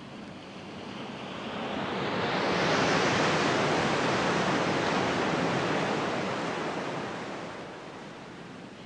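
Sea surf on a rocky shore: one swell of wave noise builds about two seconds in, holds for a few seconds, then dies away.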